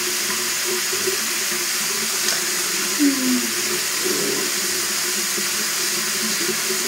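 Hot water running steadily from a tap into a sink, with a short low sound about three seconds in.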